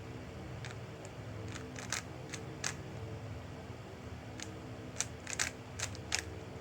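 Plastic clicks of a 3x3 Rubik's cube's layers being turned, coming in irregular bunches about two seconds in and again near the end, over a steady low hum.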